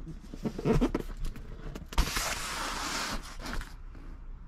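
Cardboard shipping box being handled: a few knocks, then the box thumps down on the bench about two seconds in and is slid across it with a scraping hiss for about a second.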